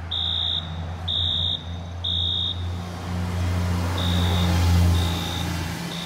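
Wheelock-built fire alarm horn sounding the temporal code-3 evacuation pattern: three short high beeps, a pause, then three more beeps, fainter. A steady low hum runs underneath.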